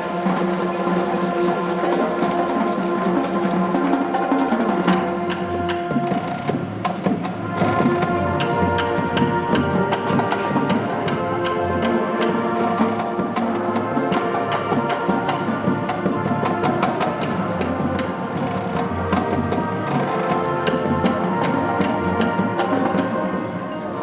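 Marching band playing: brass horns and sousaphones hold chords, with a steady stream of sharp percussion clicks and hits throughout.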